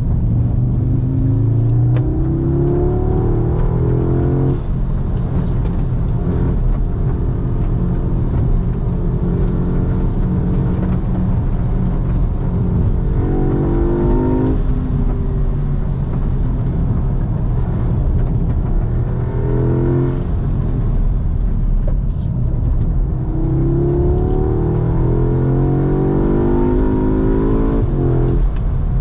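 Audi S3's turbocharged 2.0-litre four-cylinder, fitted with a Racingline turbo inlet and intake hose, heard from inside the cabin under hard acceleration. The engine note climbs through each gear and drops at each upshift, in several pulls, with a steady drone while cruising between them.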